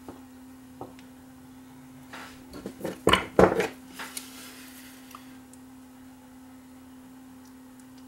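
Handling noise at a workbench: a short run of clicks and clatter about three seconds in as small switch parts and a pair of needle-nose pliers are handled, over a faint steady hum.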